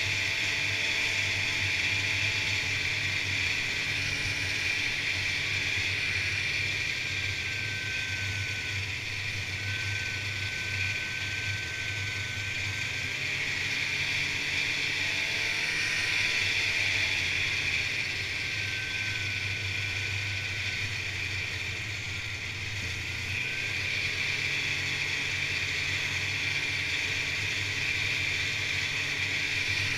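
Polaris Indy two-stroke snowmobile running along a snow trail at speed: a steady engine and track noise whose pitch rises and falls gently as the throttle changes.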